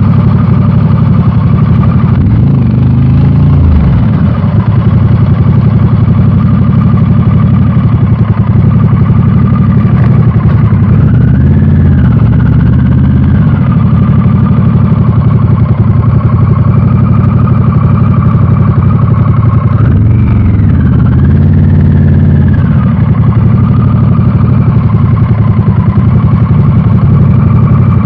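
Harley-Davidson Pan America's Revolution Max 1250 V-twin running through a Screaming Eagle exhaust under way, its engine pitch dipping and climbing back three times.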